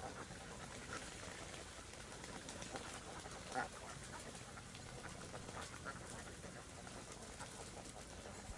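A flock of domestic ducks gives scattered soft calls, with one louder call about three and a half seconds in.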